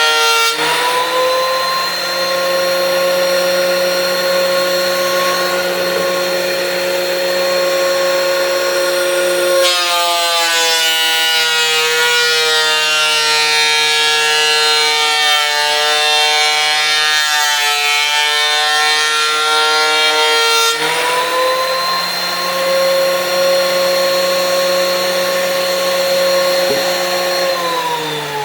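DeWalt DW734 benchtop thickness planer with its high-pitched motor whine. For about ten seconds in the middle a reclaimed stair tread passes through the cutterhead, and the whine drops a little and wavers under the load of the cut. It then runs free and steady again, and near the end it is switched off, its pitch falling as the motor spins down.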